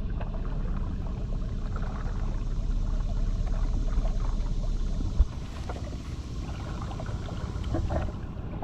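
Steady low rumble and water noise aboard a small boat, with one sharp knock about five seconds in, then quieter water sounds with small splashes.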